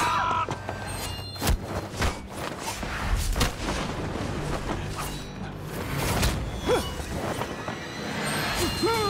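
Sword-fight sound effects over dramatic background music: a string of sharp hits and thuds, with whooshes of movement, falling every second or so. There are a few short shouts.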